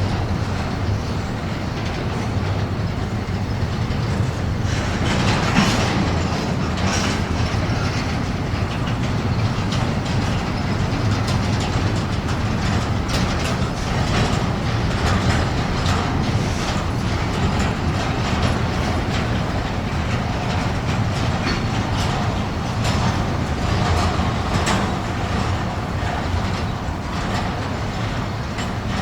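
Freight train cars rolling past: a steady rumble of wheels on rail with irregular clacks as the wheels cross rail joints.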